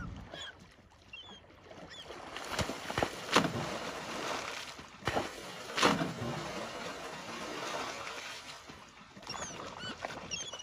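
Sea lion thrashing a halibut at the water's surface: several sharp slaps and splashes about two and a half to six seconds in, over sloshing water. Gulls call briefly near the start and a few times near the end.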